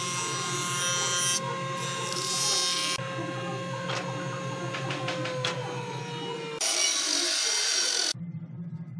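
Wood planer running with a steady motor whine, its cutterhead shaving a board with loud cutting noise through the first three seconds; the motor's pitch sags a little around five to six seconds in. About eight seconds in, the sound drops to a quieter low hum.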